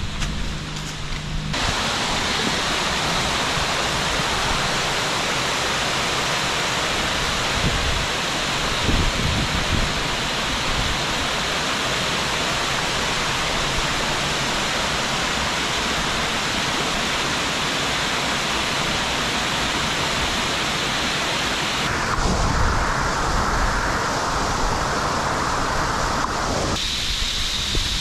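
Steady rushing of water falling through a partly frozen waterfall, an even hiss without any tone, with some low buffeting. The sound changes abruptly about two-thirds of the way in and again near the end.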